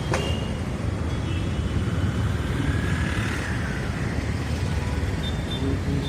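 City road traffic ambience: a steady rumble of passing engines and tyres. A sharp click comes just after the start, and faint high tones sound now and then.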